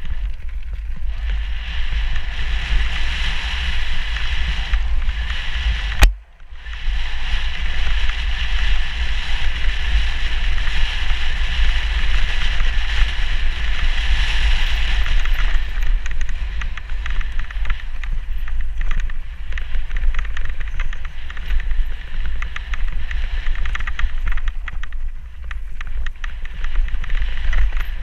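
Wind buffeting a helmet-mounted camera's microphone on a mountain-bike descent, mixed with the hiss and rumble of tyres rolling over gravel and dirt trail. There is a single sharp knock about six seconds in, with a brief dip in the noise just after it.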